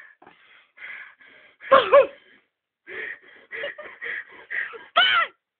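A boy sobbing: a run of short gasping breaths, broken by two louder wailing cries, one about two seconds in and one near the end.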